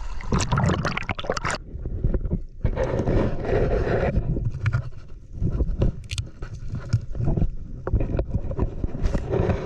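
Water splashing and sloshing in uneven rushes as a swimmer moves through a river, with short knocks and a low rumble of water against the microphone.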